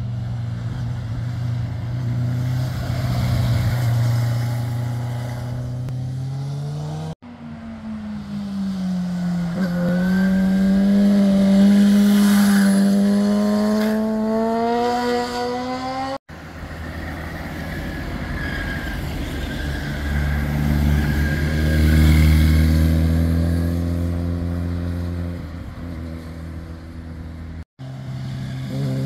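Motorcycles taking a hairpin bend one after another, each engine note dipping into the corner and climbing as the bike accelerates out. The sound cuts abruptly from one bike to the next three times, and the third bike has a deeper rumble.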